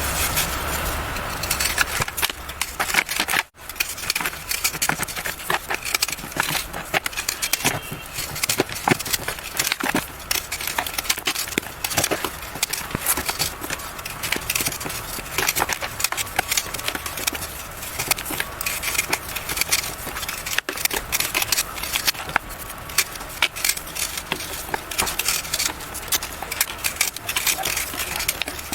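Blocks of yellow gym chalk being crushed and broken up, a continuous dense crunching and crackling of brittle chalk crumbling. The sound drops out twice, very briefly.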